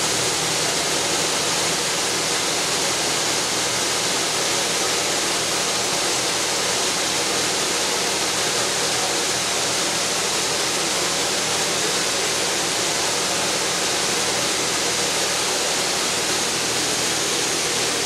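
High-pressure washer spray hissing steadily against a John Deere combine harvester's wheels and underside, with a low steady hum underneath.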